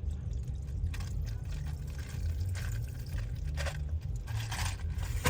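Liquor being poured from a bottle into a cup, gurgling in uneven spurts, over the low, steady rumble of a car engine idling.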